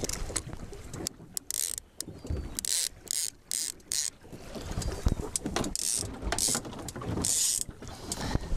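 Fishing reel clicking in several short bursts of rapid ratcheting, as line is wound or given out.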